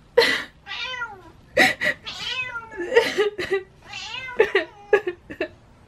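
Tortoiseshell cat meowing over and over, about half a dozen drawn-out meows that bend up and down in pitch: agitated calls in reaction to pretend crying. Several short breathy bursts fall between the meows, the loudest near the start and near the end.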